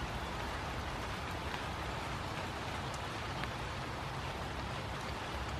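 Light rain falling steadily, with a few close drops ticking, over a low steady rumble of distant city noise.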